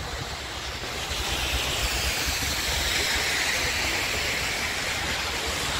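Steady hiss of road traffic, tyres on a wet, slushy road, swelling a little in the middle.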